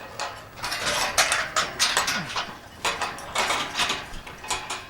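Irregular metallic clanks and rattles, several a second, typical of steel gates and pen panels in a cattle barn being knocked and swung as the cattle are let out.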